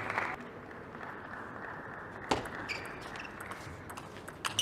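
Applause tailing off, then a quiet arena hum broken by a few sharp taps of a table tennis ball bouncing, the loudest about two seconds in and a couple more near the end.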